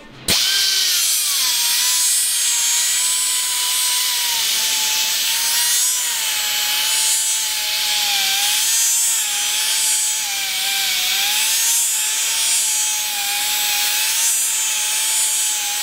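Die grinder with a flap wheel grinding out the inner bore of an old differential carrier bearing, starting up about a third of a second in and then whining steadily, its pitch wavering slightly as it is pressed into the steel, over a hiss of grinding. The bore is being opened up so the bearing slides on and off the carrier as a setup bearing.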